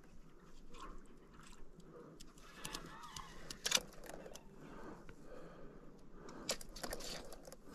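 Fly rod and reel being handled: a few sharp clicks over soft rustling of the fly line.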